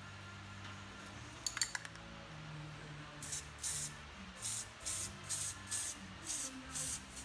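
Aerosol spray paint can sprayed in about nine short, quick hissing bursts, starting about three seconds in. A few sharp clicks come about a second and a half in, before the spraying.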